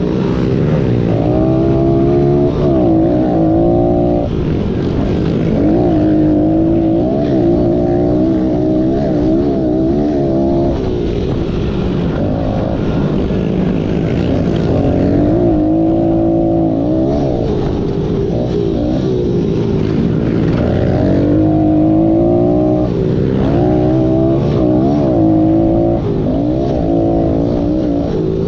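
Small 110cc-class pit bike's single-cylinder four-stroke engine at race pace, heard from on board: its pitch climbs, drops back and climbs again over and over as the rider works the throttle and gears.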